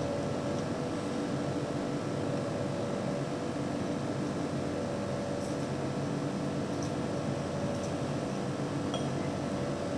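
Steady appliance hum with a few fixed tones, like a fan or refrigerator running, with a few faint light clicks of chopsticks against a bowl during the second half while noodles are eaten.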